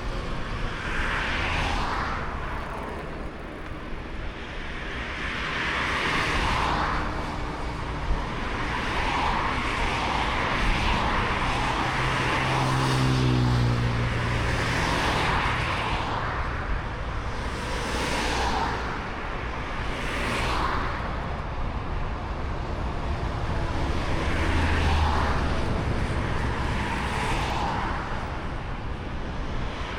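Outdoor ambience: a steady rush of noise rising and falling every second or two over a low rumble, with a motor vehicle's engine passing about halfway through.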